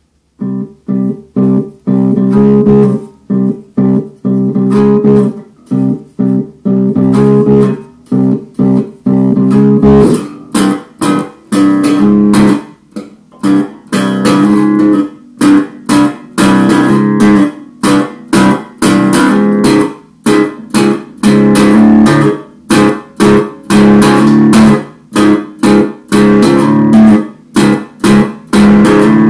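Extended-range electric bass guitar played as chords, plucked in short rhythmic bursts with brief gaps, starting about half a second in and growing fuller and brighter from about ten seconds on.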